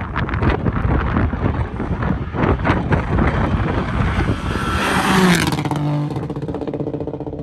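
Rally car engine approaching at speed along the stage road: first a rough, uneven noise with sharp crackles, then, from about five seconds in, a steady engine note that holds as the car draws near.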